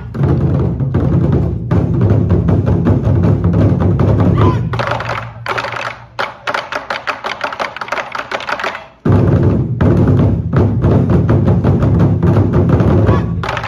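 Ensemble of Chinese red barrel drums played together with sticks in fast, driving rhythms. About five seconds in the deep booming drops away to a lighter run of sharp clicking strokes, and the full heavy drumming returns about nine seconds in.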